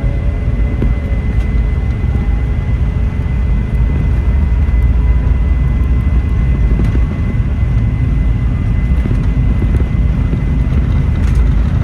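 Boeing 717's rear-mounted Rolls-Royce BR715 turbofans at takeoff thrust during the takeoff roll, heard from inside the cabin: a loud, steady deep rumble with a thin steady high whine.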